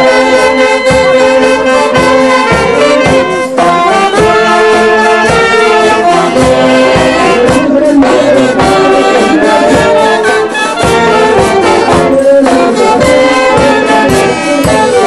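Band of saxophones and trumpets playing a melody together over a steady beat on timbales and bass drum.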